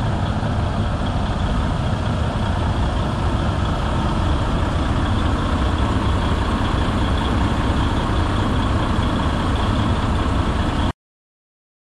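Diesel engines of parked semi trucks idling with a steady low rumble, which stops abruptly near the end.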